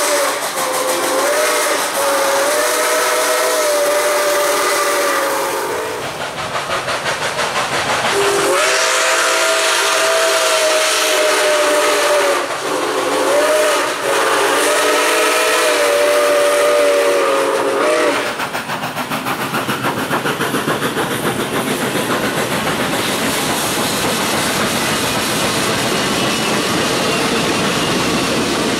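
Nickel Plate Road 765's steam chime whistle blowing a run of long blasts with a short one between the last two, the long-long-short-long signal for a grade crossing. After the whistle stops, a few seconds past the middle, the passing locomotive and train take over as a steady rush with fast wheel clicking over the rail joints.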